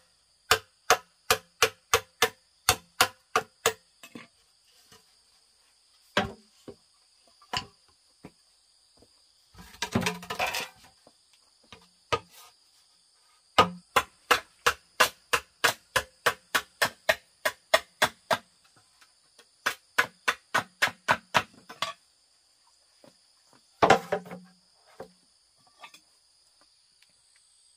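Repeated tool strikes on bamboo, about three a second, in runs of several seconds with pauses between them. Twice there is a louder, longer crackling burst, about ten seconds in and near twenty-four seconds. Insects drone steadily and high in the background.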